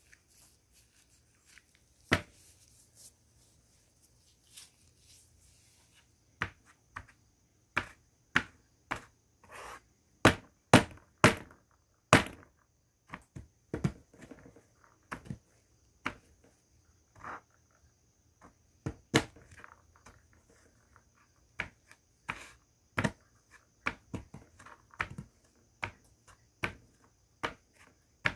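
Naphthalene mothballs cracking and crunching as they are crushed into powder under the base of a glass bottle on a tabletop: a long run of sharp, irregular cracks, sparse at first and coming thick and fast from a few seconds in, some of them loud.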